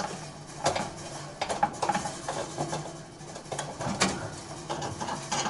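Metal rotisserie spit and lift tool clinking and scraping against the inside of an air fryer oven as the spit end is worked into its drive socket, a run of light irregular knocks.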